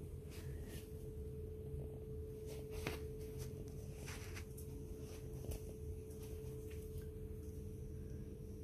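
Faint steady hum with a constant mid-pitched tone, and a few soft clicks and rustles scattered through.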